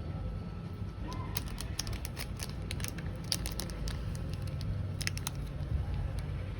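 Scattered small clicks and taps of packaging and merchandise being handled during an unboxing, over a steady low rumble.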